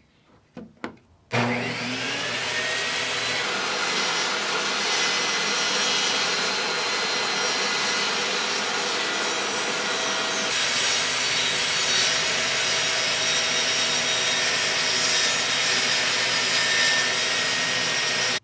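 A 15-amp table saw switched on: a couple of clicks from the paddle switch, then the motor starts suddenly with a short rising whine. It then runs loudly and steadily while ripping strips of wood.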